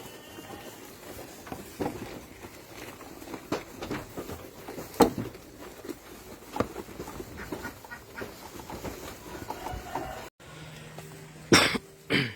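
Garut sheep feeding on fresh grass in their pen: rustling and munching, broken every second or so by short, sharp animal sounds. After a brief cut near the end come two loud, sharp sounds about half a second apart.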